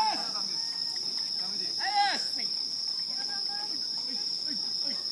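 Steady high-pitched chorus of night insects, a continuous shrill trill. A person's voice calls out briefly at the start and again about two seconds in.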